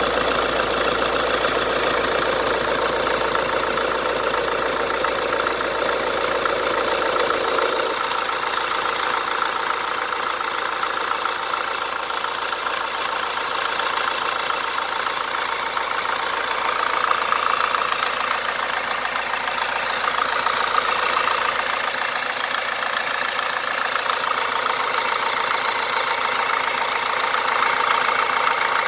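Fiat Doblo 1.6 Multijet II diesel engine idling steadily, with an aftermarket AC compressor fitted on an adapted bracket. A steady hum drops out about eight seconds in.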